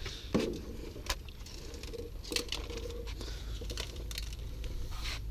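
Small pieces of shattered car window glass clicking and tinkling as they are swept up into a dustpan, in scattered light clicks.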